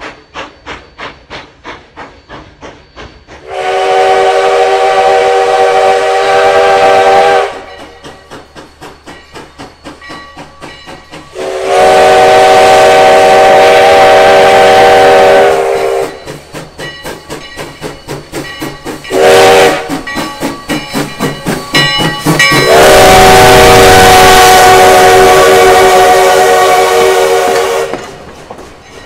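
Sierra Railway #3, a 4-6-0 steam locomotive, blowing its rebuilt chime whistle loud and clear in the long, long, short, long pattern of a grade-crossing signal. Between the blasts its exhaust chuffs steadily at about three to four beats a second.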